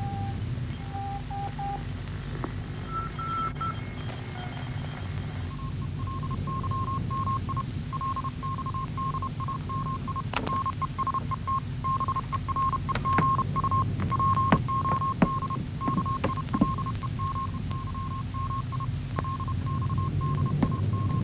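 Radio Morse code signal: a single high beep keyed on and off in short and long pulses, over a steady low hum and hiss. It shifts pitch in the first few seconds, then holds one pitch about five seconds in, and a few sharp clicks come in during the second half.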